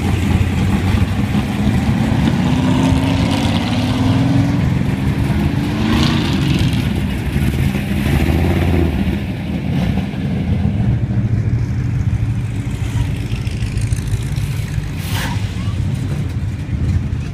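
Big V8 engines of classic muscle cars rumbling past at low speed one after another, one rising in pitch as it accelerates about two to three seconds in. A short sharp crack sounds near the end, over background voices.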